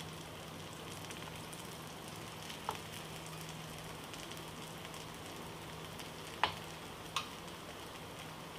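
Thin semolina chilla batter sizzling in oil on a hot non-stick pan: a steady, quiet frying hiss from the oil drizzled around its edges. A few light clicks of a steel spoon touching the pan come in now and then.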